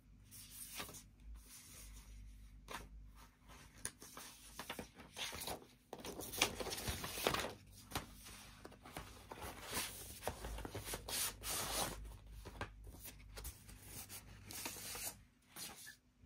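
Paper record sleeves and printed inserts rustling, rubbing and sliding against each other as they are handled, in irregular spells with short pauses between.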